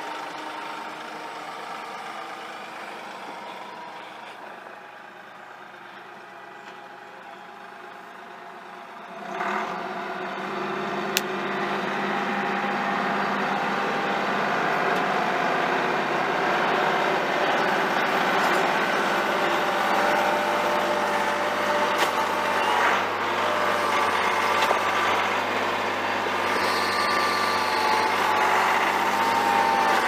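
Compact tractor engine running, quieter at first, then revving up about a third of the way in and staying loud under load as the front loader works the soil.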